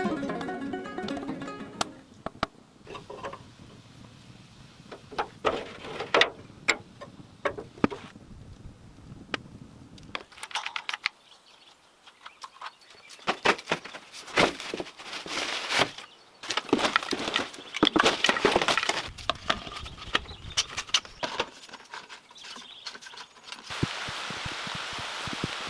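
Background music fading out, then irregular knocks, clicks and snapping cracks of wood being handled and worked. A steady hiss starts near the end.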